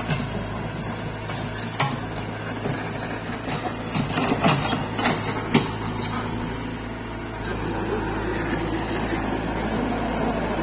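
Komatsu PC75 mini excavator's diesel engine running steadily as the boom and bucket are worked. Sharp metal clanks and knocks come once about two seconds in and several times between about four and five and a half seconds in.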